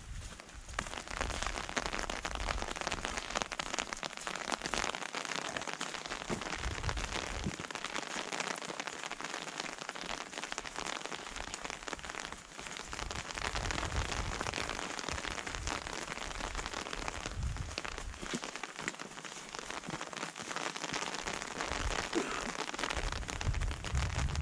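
Steady rain falling in a conifer forest: a dense, even hiss of many small drops striking foliage and ground. Low rumbles come and go.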